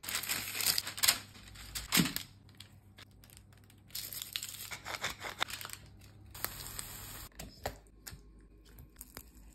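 Parchment baking paper crinkling and rustling under hands as halved cherry tomatoes are laid on a baking tray, with scattered small taps and clicks of food and tray handling.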